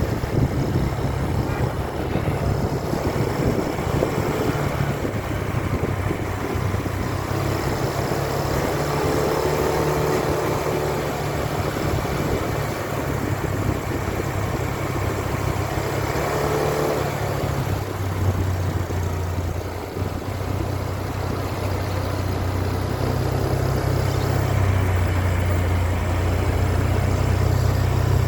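Road traffic: motor vehicle engines running with a low, steady drone.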